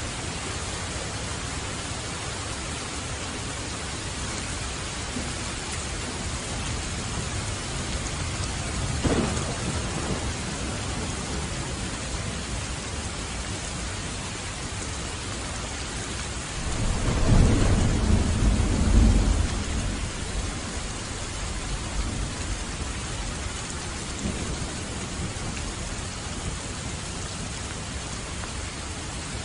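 Steady heavy rain with thunder: a short sharp crack about nine seconds in, then a loud, low rolling rumble a few seconds past the middle that dies away.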